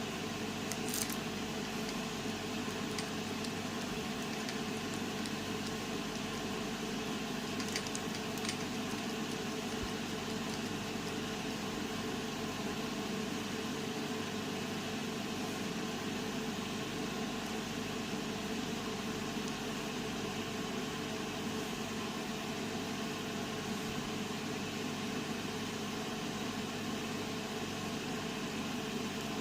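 Steady mechanical background hum, like a fan or appliance running, with a few faint clicks, one about a second in and a couple around eight seconds in.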